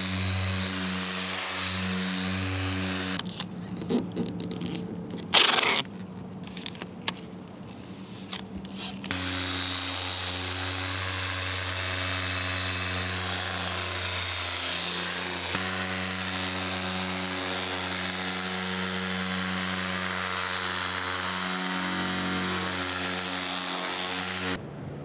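Corded dual-action polisher running steadily with a polishing pad on a truck's paint during machine paint correction. It stops about three seconds in; a few knocks and one short loud bump follow. The polisher starts again about nine seconds in and runs on until it cuts off just before the end.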